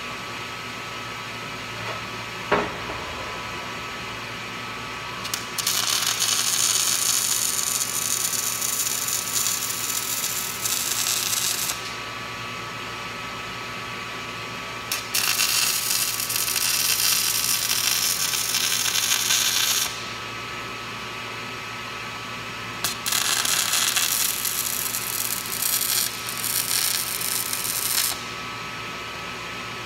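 Arc welding on a steel post: three runs of loud crackling sizzle, each about five seconds long, with a steady electrical hum between them. A single sharp click comes about two seconds in.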